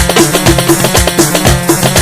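Instrumental break of an Arabic pop song with no singing: a full band and keyboard mix over a steady drum beat, with the kick landing about twice a second.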